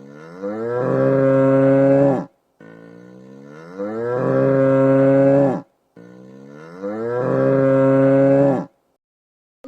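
Aberdeen Angus bull bellowing: three long, identical moos, each rising in pitch and then held for a couple of seconds before cutting off.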